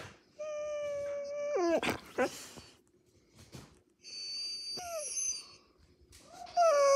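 Husky whining and howling in protest at having just been bathed: a held, level call that drops and breaks up about two seconds in, a shorter call around four seconds in, and a louder long call with falling pitch starting near the end.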